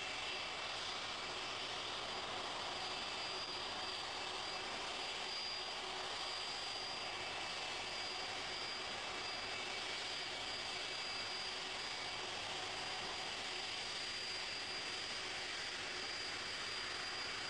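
Boeing 747 jet engines running steadily: a high, even whine over a constant rush of noise.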